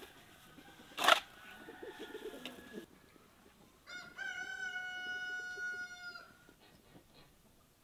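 A spade biting into soil with a sharp scrape about a second in, followed by more scraping, then a rooster crowing about four seconds in: a few short notes and one long held note of about two seconds.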